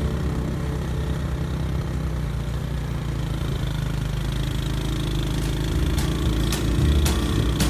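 An ATV engine running steadily, getting a little louder near the end.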